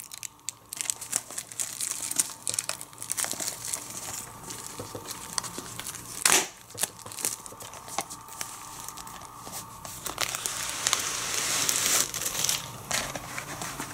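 Plastic shrink wrap being torn and peeled off a DVD box set, crinkling and crackling throughout, with one sharper rip about six seconds in and denser crinkling near the end.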